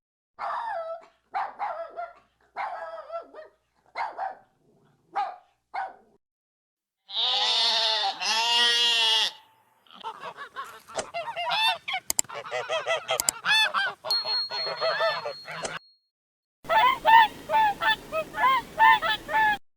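Geese honking in a run of separate clips: first a string of short single honks, then two long drawn-out honks, then a flock calling in many quick, overlapping honks.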